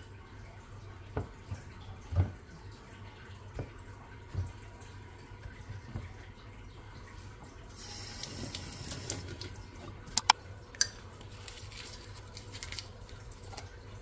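Water running briefly from a tap into a sink, with scattered knocks and a few sharp clicks around it.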